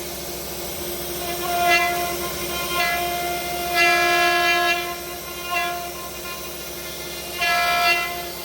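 CNC router spindle whining at a steady high pitch while carving wood. A louder, harsher tone swells in several times as the bit cuts into the wood, the longest cut lasting about a second near the middle.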